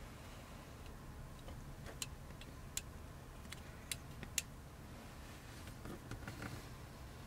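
Several sharp, light clicks and taps from a steel ruler and snap-off utility knife blade on a cutting mat while trimming a vinyl sheet, then brief soft scraping near the end.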